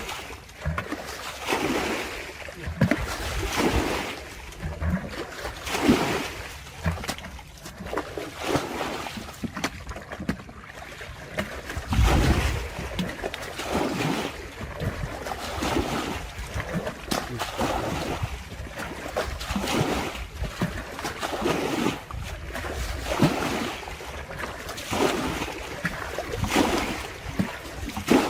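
Water splashing and sloshing in irregular bursts every second or two, as when wading or working a net in shallow water.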